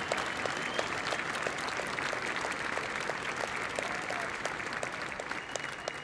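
Audience applauding steadily, a dense patter of many hands clapping, with a couple of brief high whistles near the start and again near the end.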